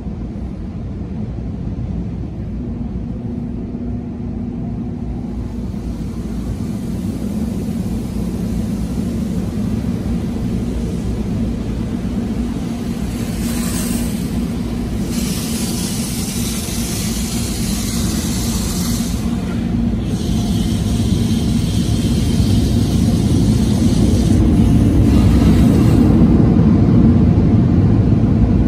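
Automatic tunnel car wash heard from inside the car: a steady low rumble of the wash machinery. From about halfway in, stretches of water spray hiss over the windshield and body, and the rumble grows louder near the end.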